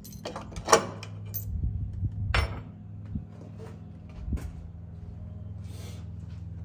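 Metal parts and tools being handled and set down: a few sharp clanks and knocks, the loudest a little under a second in and again about two and a half seconds in, over a steady low hum.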